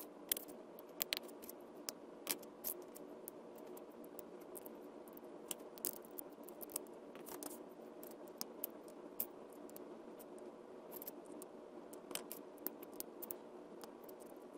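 Small plastic LEGO pieces clicking and tapping as they are picked off a table and pressed together: irregular sharp clicks, the strongest in the first few seconds, over a steady low hum.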